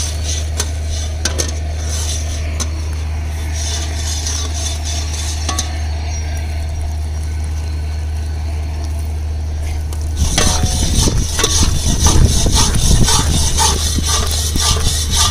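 A ladle stirring and scraping in a pan as roasted gram flour is worked into boiling sugar syrup, with scattered light clinks. The scraping turns much louder and busier about ten seconds in, over a steady low hum.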